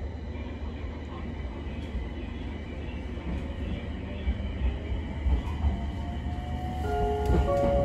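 Running sound heard inside an Abukuma Express AB900 series electric train: a steady rumble of wheels on rail. About seven seconds in, the whine of its Mitsubishi IGBT VVVF inverter comes in as several stepped tones, and the sound grows louder.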